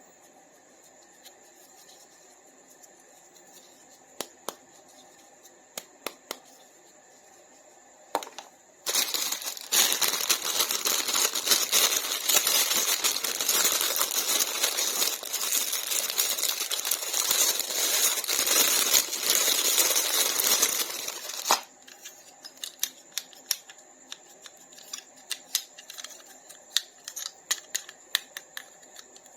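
Toy packaging being handled: scattered small clicks and taps, then from about nine seconds in, some thirteen seconds of loud, continuous crinkling and rustling, after which the clicks resume.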